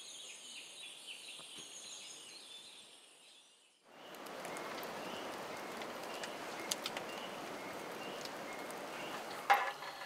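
High, faint chirping calls of birds and insects for the first few seconds. After a cut, a campfire crackles with a steady hiss and scattered pops, and there is one sharper knock near the end.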